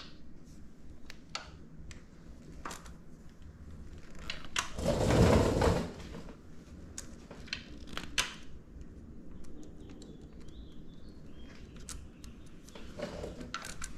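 Scattered light clicks and taps of small hand tools and metal parts being worked on a motorcycle rearset's shift linkage. A louder burst of noise lasting about a second comes about five seconds in.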